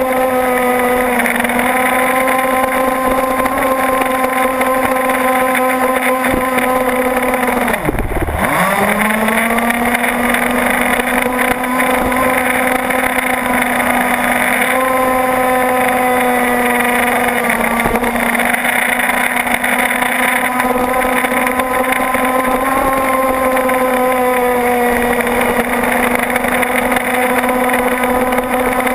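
Gasoline two-stroke engine of an RC racing boat, heard close up, running flat out at a steady high pitch over a hiss of spray and rushing water. About eight seconds in, the revs drop sharply and climb back within about a second.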